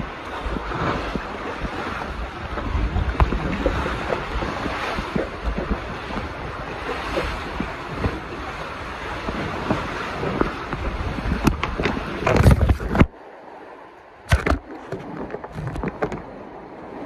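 Rubbing and rumbling handling noise on a phone's covered microphone as it is carried, with small thumps throughout; it cuts off suddenly about thirteen seconds in, followed by a few short knocks.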